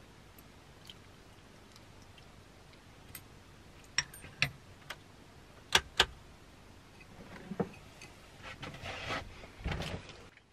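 A ladle clinking against a slow cooker pot and a serving bowl as stew is dished up: a few sharp clinks in two pairs about four and six seconds in, then soft handling noises near the end.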